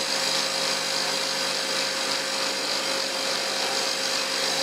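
Underground rock-bolting rig drilling into the rock with its boom, a steady, unchanging drilling noise with a constant tone under it.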